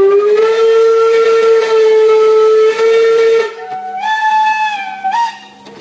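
Steam locomotive whistle blowing: one long, steady blast lasting about three and a half seconds, then a shorter second blast whose pitch wavers and steps up just before it cuts off.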